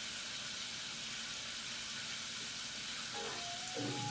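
Chicken wings deep-frying in hot oil, a steady sizzle. Music starts up near the end.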